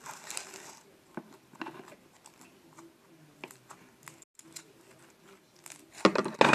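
White slime mixed with artificial snow being snipped with small scissors and squeezed by hand: scattered soft clicks and crackles, with a louder burst of crackling near the end.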